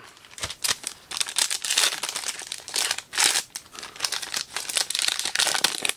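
A trading-card pack's foil wrapper crinkling in the hands as it is torn open, in a run of irregular crackles.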